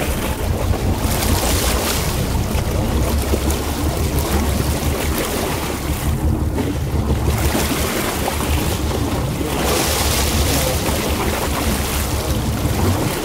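Wind buffeting the microphone over open sea: a steady low rumble with a hiss that swells and fades every few seconds, along with the wash of sea water.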